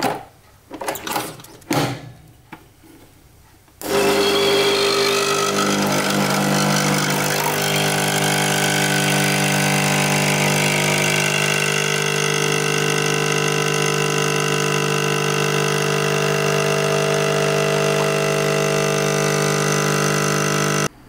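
A few clicks and knocks, then about four seconds in a motor starts and runs steadily with a constant hum and hiss until it cuts off suddenly near the end.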